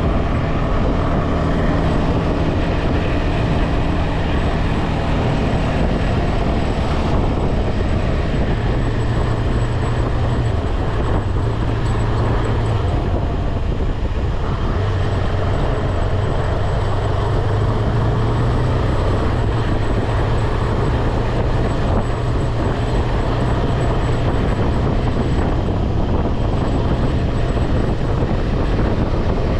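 KTM 250 Adventure's single-cylinder four-stroke engine running steadily at highway speed, with rushing wind and road noise over it; the engine note settles lower about eight seconds in.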